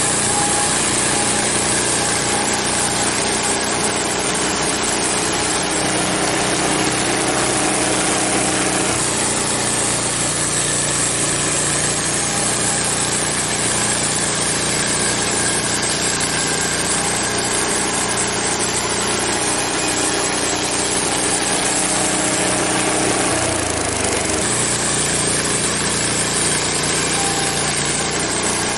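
Small gas engine of a Frontier OS23 portable bandsaw mill running steadily as the mill saws a cottonwood log into boards; its pitch dips briefly about 23 seconds in, then recovers.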